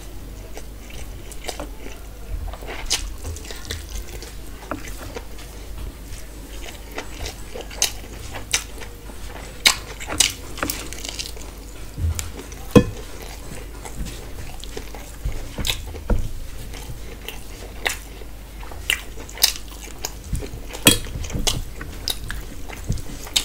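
Close-up eating by hand: wet mouth smacks and chewing of rice and mutton curry, with squelches of fingers mixing rice and curry on a metal plate. Sharp clicks come irregularly, several close together at times, over a steady low hum.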